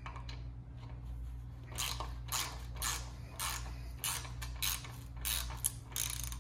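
Husky pass-through ratchet turning a deep-well socket on a recessed nut, its pawl clicking in short bursts as the handle is swung back and forth. The bursts start about two seconds in and come about twice a second.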